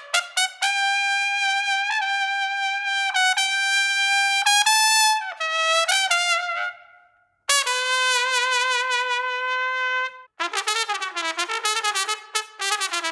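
Plastic trumpet played solo: long held notes with a few changes of pitch, a short break, a lower sustained note, then a quicker passage of wavering notes near the end.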